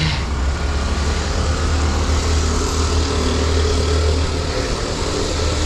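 Steady low rumble of motor traffic, like an engine running close by, under an even hiss of road noise.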